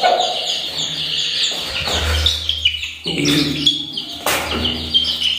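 Young chicks, about three weeks old, peeping continuously in quick high-pitched notes. The peeps come with the rustling and bumping of one chick being grabbed and held close, including a sharp knock a little past four seconds in.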